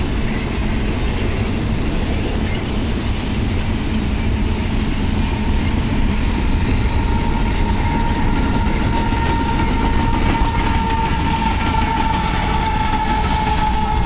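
BNSF intermodal freight train of single-stack container cars rolling past with a steady rumble and clatter of wheels on rail. From about halfway through, a high drawn-out tone joins the noise and sags slightly in pitch.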